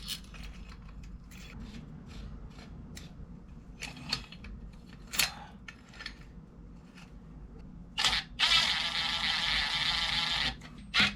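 Light metallic clicks of bolts and washers being handled, then a power drill runs in a steady whir for about two and a half seconds, driving in a bolt.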